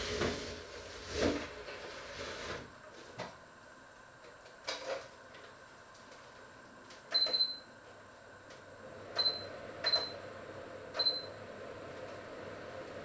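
Short, high electronic beeps as buttons are pressed on a kitchen appliance: a quick cluster about seven seconds in, then three single beeps roughly a second apart. Before them, rustling and a few knocks as someone moves about.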